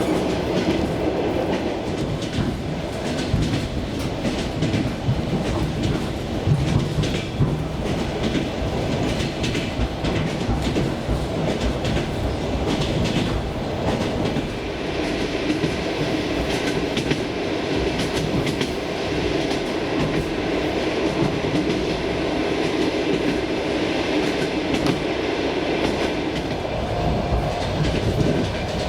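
Suburban electric commuter train running at speed, heard from inside a passenger car: a steady rumble with the knocking of the wheels over rail joints.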